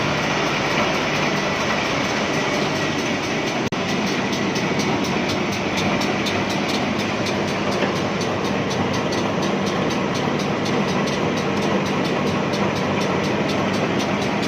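Woodworking moulding machine running steadily, a continuous dense machine noise with a fast, even ticking running through it.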